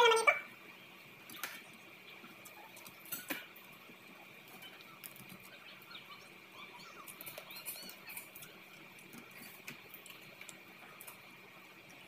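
Soft eating sounds from cooked crab: picking and cracking of the shell by hand, with chewing and lip smacks. A couple of sharper shell clicks come in the first few seconds.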